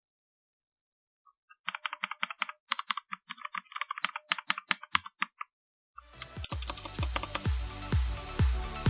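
Typing on a Redragon Kumara K552 mechanical keyboard: a fast, uneven run of key clicks lasting about four seconds. Near the end, electronic dance music with a steady beat comes in.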